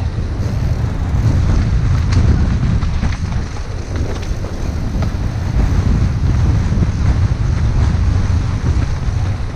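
Wind rushing over the microphone and a steady low rumble of tyres on a dirt trail as a Specialized Stumpjumper trail bike descends fast, with a few faint clicks from the bike over roots and rocks.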